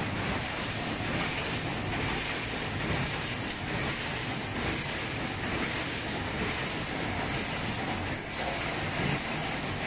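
Steady mechanical noise from a running wire mesh welding line in a factory hall, with no clear beat or single event standing out.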